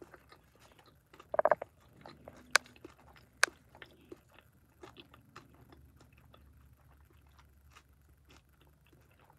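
A person quietly chewing a hash brown topped with jam: scattered soft mouth smacks and a few sharp clicks, with a brief hum about a second and a half in.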